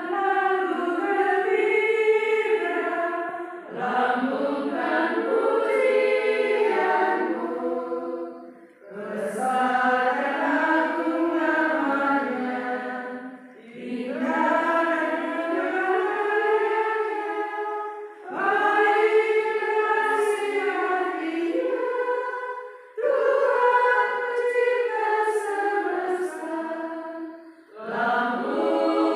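A group of women's voices, a community of nuns, singing together. The song runs in phrases of about four to five seconds with short pauses for breath between them.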